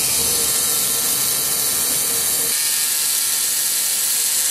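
3Doodler 3D pen running as it extrudes plastic filament: a steady mechanical whirr of its feed motor and gears. A faint steady hum within it drops out about halfway through.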